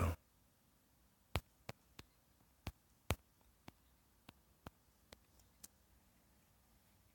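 Light, irregular clicks of typing on a smartphone's on-screen keyboard, about ten keypresses spread over some four seconds, then the clicking stops.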